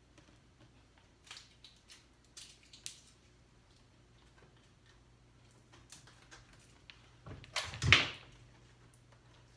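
Scattered light clicks and taps from handling, then one louder knock with a short rustle about eight seconds in, over a faint steady hum.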